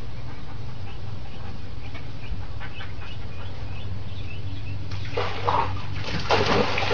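A large dog, a German shepherd, slipping off the pool edge and splashing into a swimming pool about five to six seconds in, the loudest thing here, with faint high squeaks before it.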